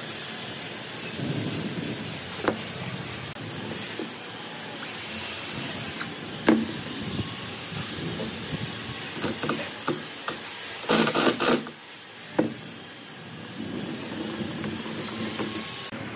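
Workshop handling noise from wooden boat parts: scattered knocks and clacks of wood on wood as a pedal crank and paddle-wheel assembly is fitted, with a brief rattling burst about eleven seconds in. A thin high whine wavers up and down throughout.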